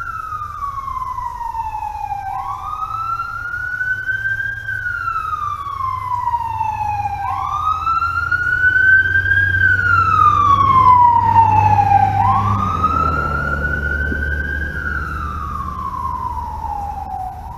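Emergency vehicle siren wailing as it passes, its pitch sweeping up and down in a slow cycle of about five seconds. It grows louder toward the middle and fades near the end, over a low vehicle rumble.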